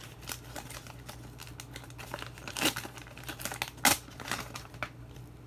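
Paper wrapper of a 1986 O-Pee-Chee baseball card pack being torn open and crinkled, a run of short crackles with a sharper tear about four seconds in.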